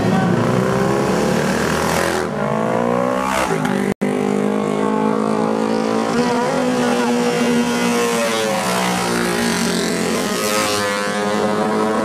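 Classic racing motorcycles running hard past through a corner, several engines at high revs with their pitch rising and falling as they come through. The sound cuts out for an instant about four seconds in.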